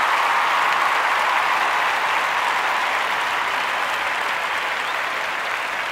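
A crowd applauding, a dense, steady clapping that eases off slightly toward the end.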